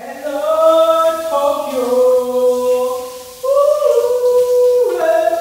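Voices singing long held notes together in a chord, a choir-like a cappella sound. The notes shift every second or so, fade briefly near the 3-second mark, and come back in strongly about three and a half seconds in.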